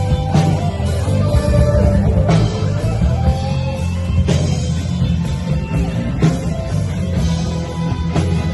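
Rock music with guitar, heavy bass and a drum kit keeping a steady beat.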